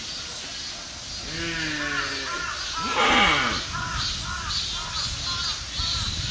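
Deer calls. A pitched call falls in pitch about a second and a half in, and a louder call follows around three seconds. After that comes a quick run of short, high, arched calls, about two to three a second.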